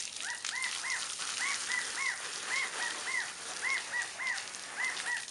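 Garden hose spray nozzle hissing as water splashes over a miniature horse. Over it comes a rapid run of short, high, rising-and-falling chirping calls, about four a second, from an animal that cannot be identified.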